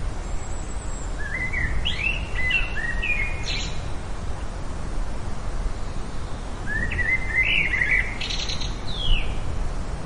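A songbird singing two short phrases of quick, warbling chirps, about five seconds apart, over a steady low background noise.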